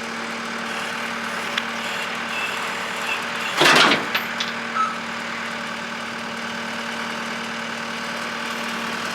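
Tractor engine idling steadily. About three and a half seconds in there is a single brief, loud noisy sound, and a few faint clicks follow it.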